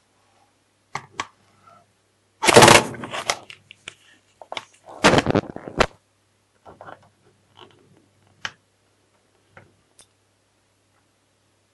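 Handling noise from a smartphone on a wooden worktop: a few sharp clicks and knocks, with two louder scraping, scuffling bursts about a second long, then scattered light taps.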